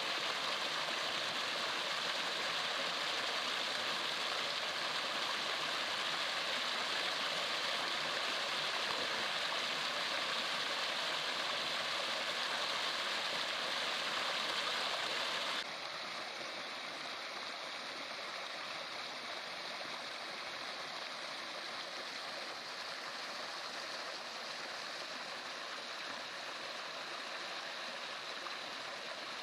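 Steady rush of a stream's running water, which drops suddenly to a quieter, duller rush about halfway through.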